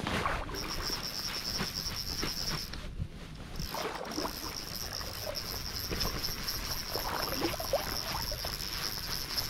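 Crickets trilling steadily at a high pitch, dropping out briefly about three seconds in, over water sloshing and splashing close by.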